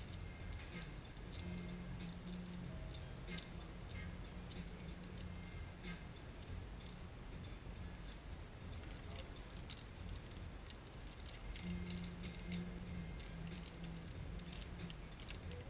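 Small, irregular metal clicks and rattles of a bike seat clamp's parts being handled: the outer plates taken off and the clamp fitted onto the saddle rails. A low steady hum runs underneath.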